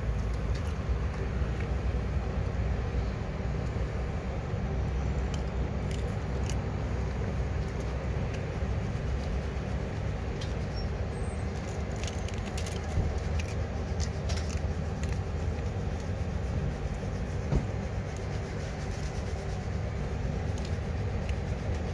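Steady low rumble of a nearby motor vehicle's engine running, with a few light clicks scattered through the middle.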